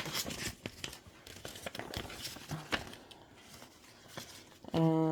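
Soft crinkling and small clicks of paper and small items being handled, then near the end a person hums one steady 'mmm' for about a second.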